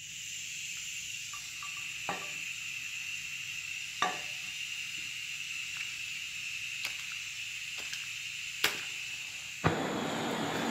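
Gas torch flame hissing steadily as it heats a seized oil gallery plug in a cast-iron engine block, with a few light metallic clicks. Near the end the hiss turns into a louder, rougher rush.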